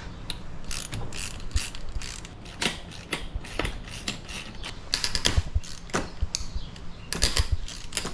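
3/8-inch hand ratchet with a 6 mm Allen socket clicking in irregular runs, with short pauses between, as the handlebar clamp bolts of a pit bike are loosened.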